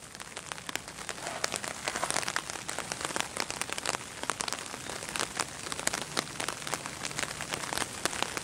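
Steady rain falling, with a dense patter of individual drops ticking close by.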